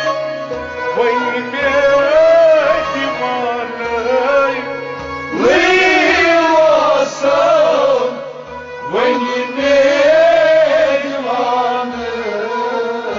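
A man sings a Kashmiri Sufi kalam in long, bending phrases over a steady held instrumental tone and a regular percussion beat. New phrases start with a rising swoop about five and nine seconds in.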